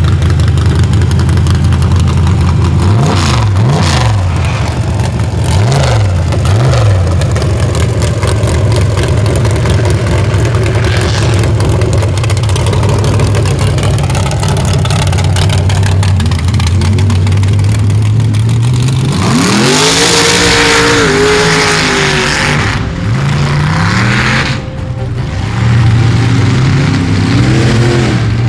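Engine of a lifted mud-bogging Jeep on big mud tyres, running loud with a few quick revs early on. About two-thirds of the way through comes a long rising rev with a rush of hiss over it, and there are more short revs near the end.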